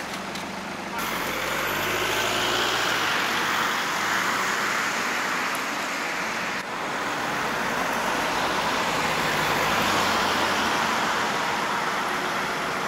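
Engines and road noise of a slow-moving heavy-haulage convoy, the heavy-load truck with its escort van and police cars, a steady running sound. The level jumps abruptly about a second in and again a little past the middle.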